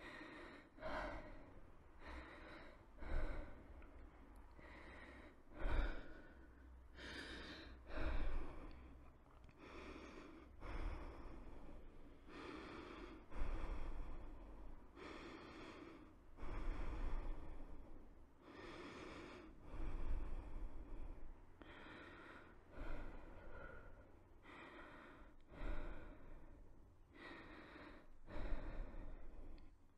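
A person's breathing, in and out, with a loud breath about every two seconds.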